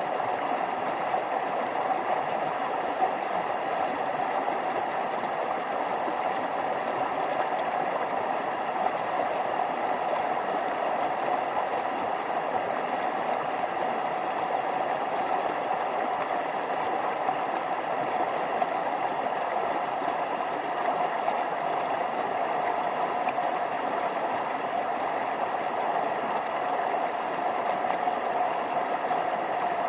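Forest stream running over small waterfalls: a steady rush of water, unbroken throughout, with little deep rumble.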